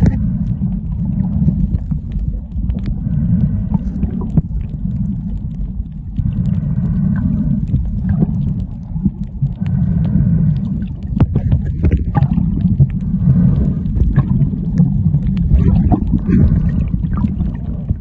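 Muffled underwater sound picked up by a submerged camera while snorkelling: a steady low rumble of moving water, with a faint pitched sound coming back about every three seconds and scattered small clicks.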